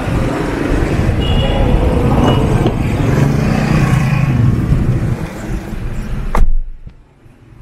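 Street traffic noise, with vehicle engines running and passing. About six seconds in there is a loud thump, after which the sound drops suddenly to a quiet hush.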